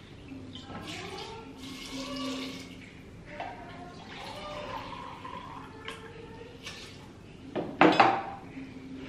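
Water poured from a measuring jug into a plastic cup, then tipped into an aluminium pressure cooker, twice, with a rising gurgle as the cup fills. Near the end comes a loud, short clatter against the metal pot.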